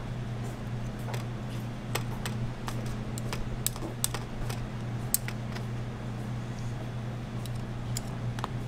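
Waffle-making kitchen work: scattered light clicks and taps of utensils over a steady low hum, with the sharpest clicks about four and five seconds in.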